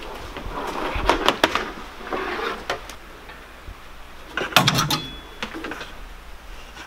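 Handling noises of a work light and gear being put away at a toolbox: a few sharp knocks about a second in, then a louder clatter with a dull thump a little after the middle.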